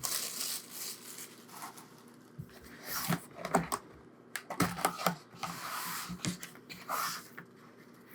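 Hands opening a boxed stationery kit and handling its packaging and contents: scattered rustles, crinkles and light taps, with a few louder clicks about three and five seconds in.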